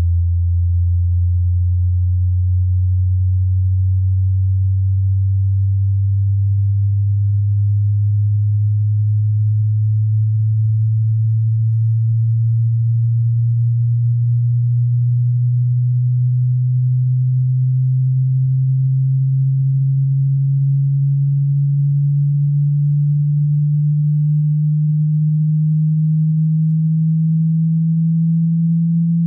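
A pure sine-wave test tone gliding slowly and evenly upward in pitch, from a deep hum to a somewhat higher low tone, at a steady loudness: the low end of a low-to-high frequency sweep used as a hearing test.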